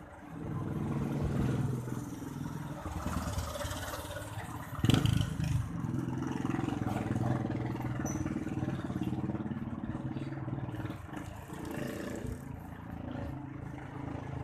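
A motor vehicle's engine running close by, a steady low hum that wavers a little in pitch. There is a single loud knock or clatter about five seconds in.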